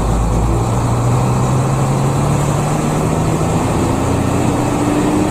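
Intercity bus engine heard from inside the cabin, running with a steady drone whose pitch rises slowly as the bus picks up speed, over road noise.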